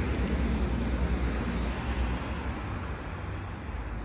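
Steady low rumble under an even hiss, easing off slightly toward the end.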